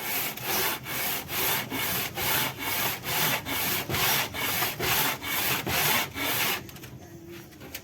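Honda Vario 125 cylinder block rubbed back and forth by hand on sandpaper laid on glass, a rhythmic scraping at about two strokes a second that stops about a second before the end. The block's gasket face is being lapped flat to check whether it has warped.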